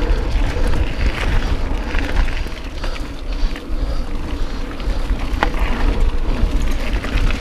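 Mountain bike riding fast down a forest singletrail: wind buffeting the action-camera microphone over the rumble and rattle of tyres on the dirt trail, with one sharp click about five seconds in.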